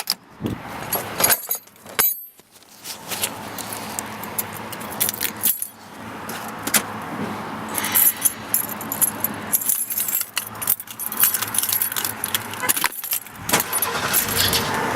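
Car engine idling with a freshly installed serpentine belt, running without belt squeal, with keys jangling.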